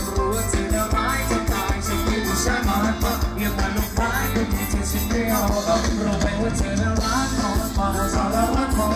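Live band music played loud over a stage PA system, with a steady drum beat.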